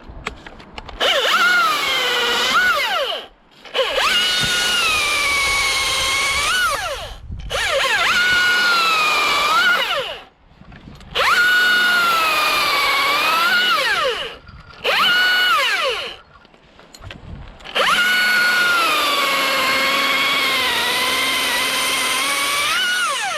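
Two-stroke chainsaw making five cuts in a row. In each cut the engine is revved high, its pitch sags as the chain loads up in the wood and rises again as it frees, then the throttle is let off. The fourth cut is short and the last is the longest.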